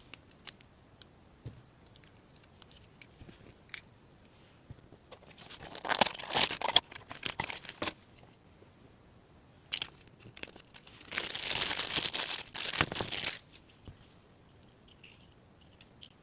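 A few light clicks and taps, then two bursts of crinkling and tearing of thin wrapping material, each lasting two to three seconds.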